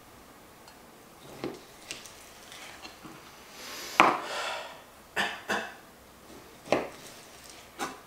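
Kitchen knife slicing raw goose breast into strips on a cutting board: the blade knocks against the board several times, loudest about four seconds in, followed there by a brief scrape.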